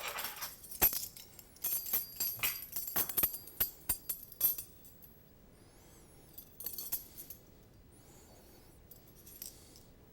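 Metal kitchen utensils clinking and jangling against a glass mixing bowl for the first few seconds, then a few short, thin, high squeaks of metal scraping on glass.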